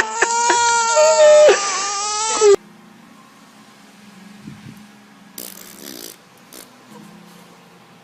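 A baby crying loudly in long, wavering wails, typical of an infant frightened by a sudden noise. The crying cuts off abruptly about two and a half seconds in. After that there is only faint room hum and a brief rustle.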